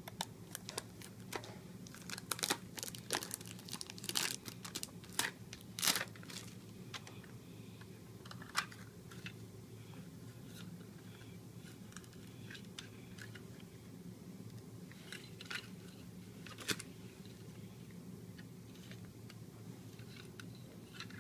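Cellophane wrapper of a Maxell UR60 blank cassette being picked at and torn off by small fingers: sharp plastic crinkles and crackles, thick over the first several seconds, then only now and then. A steady low hum runs underneath.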